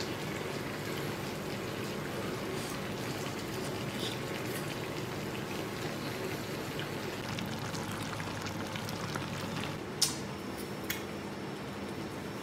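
Dry-pot bullfrog sizzling steadily in its metal pot on a portable gas stove, with a sharp click about ten seconds in.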